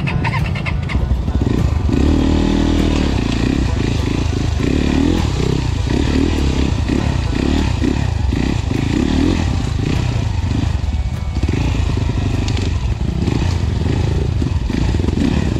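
KTM dirt bike engine revving up and down, its pitch rising and falling about once a second as it is ridden over a rough, muddy trail.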